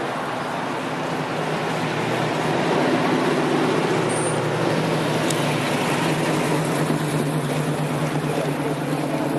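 A motor vehicle engine running steadily, a low even hum under a wash of outdoor noise, with a brief high chirp about four seconds in.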